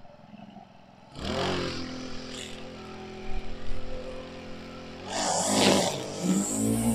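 Honda curved-shaft lawn whipper's small four-stroke engine starting up about a second in and running steadily, then revving up about five seconds in.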